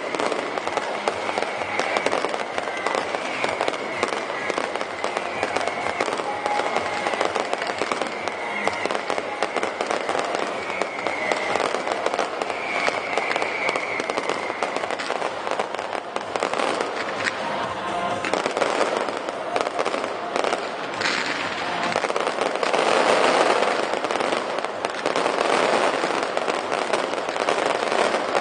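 Aerial fireworks display: dense, continuous crackling and popping from many shells and comets bursting together, swelling loudest a little over twenty seconds in.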